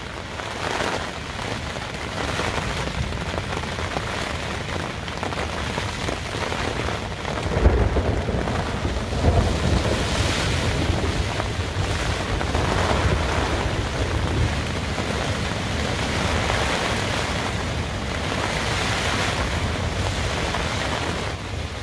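Heavy rain pouring steadily on a backpacking tent's nylon fly, heard from inside the tent, with wind shaking the fabric. About eight seconds in, a deep low rumble starts suddenly and swells for several seconds.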